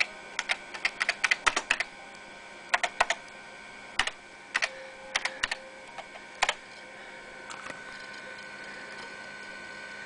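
Sharp, irregular clicking from an IBM PS/2 P70 computer as it loads DOS and Windows for Workgroups 3.11, coming in quick clusters over the first six seconds or so. After that only the machine's steady faint hum is left.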